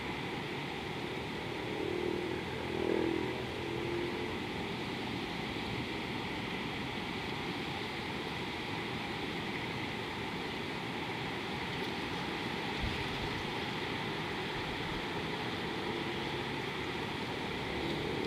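Steady outdoor hiss of wind and flowing river water, with brief faint low calls about three seconds in and again near the end.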